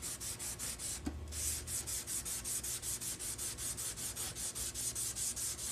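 Rapid back-and-forth scrubbing of a vinegar-soaked, rusty machete blade with an abrasive scrubber, about four to five strokes a second, with a short pause about a second in. This is rust being scoured off the steel.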